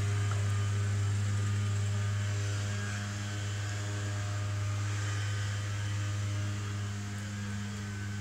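A steady, even low mechanical hum with a few higher tones above it, like a motor or engine running continuously.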